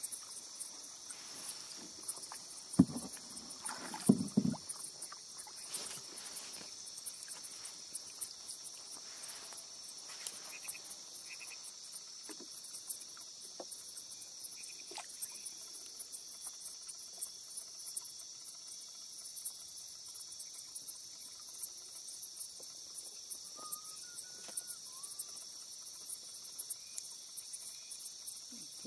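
A steady, high-pitched chorus of night insects. Over it come two sharp knocks about three and four seconds in, and a few soft splashes of water as a fishing net is hauled by hand over the side of a wooden canoe.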